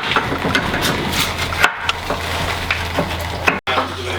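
Clatter and scraping of hand tools being worked, with many sharp clicks and knocks over a low steady hum. The sound cuts out abruptly twice.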